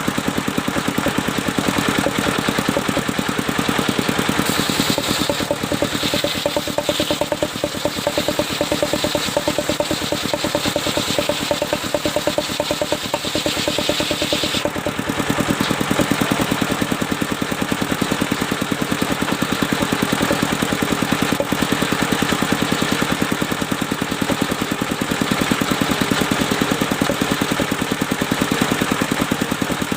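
Engine of a portable circular sawmill running steadily with a fast, even beat. A hissing layer rides over it from about four seconds in and stops suddenly about halfway.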